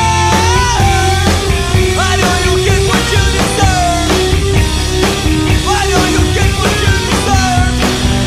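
Dense, loud rock music: a heavy low end and regular drum hits under a high melody line that keeps sliding up and down in pitch.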